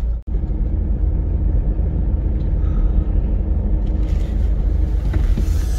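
Kia Carnival minivan driving, heard inside the cabin: a steady low rumble of engine and road noise. There is a sharp brief dropout just after the start, and more hiss from about four seconds in.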